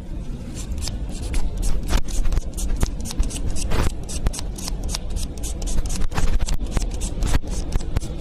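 Nail buffer block rubbed quickly back and forth across a fingernail with short scratchy strokes, several a second, over a low steady hum. This is the buffing stage that smooths the nail surface.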